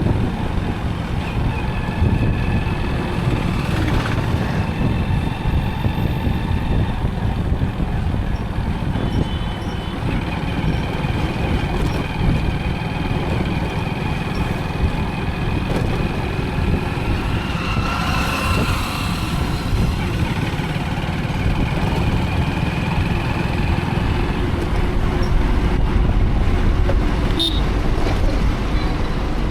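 Motorcycle riding through town traffic: a steady low rumble of the engine and wind on the microphone, with passing traffic and vehicle horns sounding at times.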